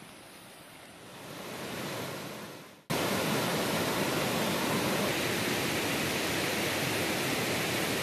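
Faint background hiss that swells and fades, then, cutting in suddenly about three seconds in, the steady rush of a waterfall stream cascading over boulders.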